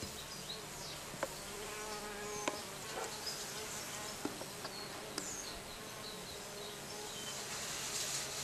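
An insect buzzing, over which come several sharp ticks as the small engraving knife works the face of a stone seal, with faint high chirps now and then.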